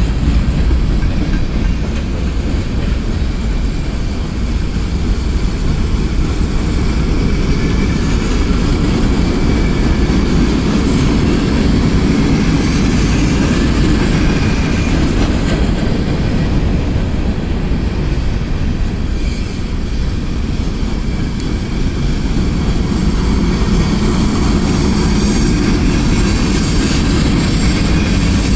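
Freight cars, mostly covered hoppers, rolling past close by: a steady, loud rumble and clatter of steel wheels on rail, with faint high wheel squeal toward the end.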